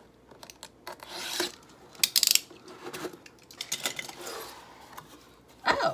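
Box cutter slicing the packing tape on a corrugated cardboard mailer box, with cardboard scraping and rubbing. The loudest stroke is a sharp rasp about two seconds in, followed by lighter scrapes and ticks as the box is worked open.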